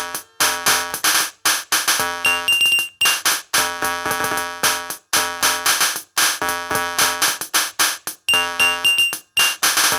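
Instrumental hip-hop beat: repeating synthesizer chords over drum-machine hits, with a high synth tone that recurs in short pulses.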